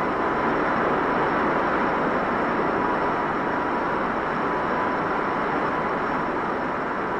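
Avro Canada Avrocar VZ-9 hovering in ground effect, its jet-driven central fan giving a steady rushing noise with a faint thin whine through it, on an old film soundtrack.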